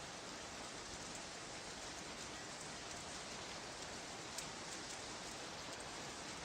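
A recorded rain sound effect: a steady, even patter-like hiss off a vintage sound-effects record, with one faint click about four seconds in.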